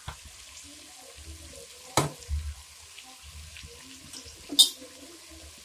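A spoon stirring chicken legs and spices in a pressure-cooker pot, scraping and knocking against the metal, with a sharp clink about two seconds in and a louder one near the end, over faint frying.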